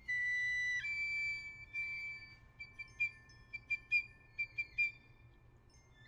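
A small flute playing a bird-song imitation in high held notes, then a quick run of about ten short, sharp chirps over a sustained tone that fades away near the end.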